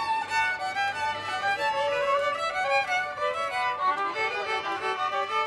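Music led by a violin playing a melody.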